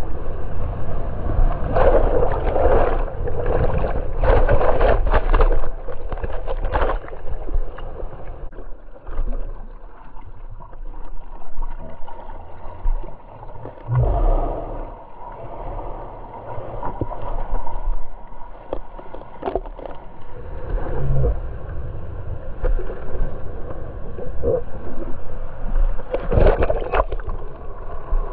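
Ocean whitewash rushing and splashing right at the camera as a bodyboarder rides through broken waves. It eases to quieter sloshing with a few splashes from paddling in the middle, then a breaking wave's whitewash surges loudly again near the end.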